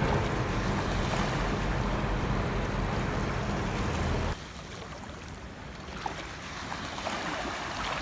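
Ocean waves washing on a beach, with a heavy low rumble. About four seconds in the sound cuts abruptly to quieter, thinner surf that slowly swells again toward the end.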